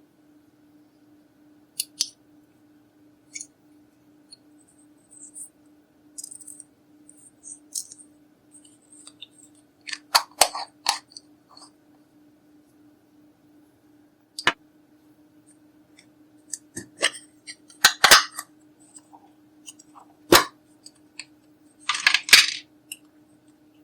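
Makeup cases and tools being handled: irregular sharp clicks, taps and short scrapes of small hard objects, coming in louder clusters around the middle and near the end, over a faint steady low hum.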